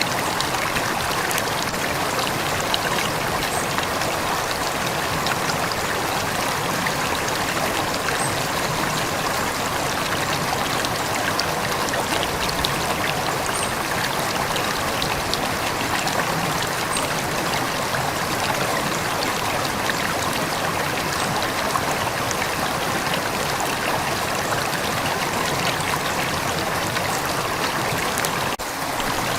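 River water flowing steadily, a continuous even babbling with a slight trickle, briefly dipping in level near the end.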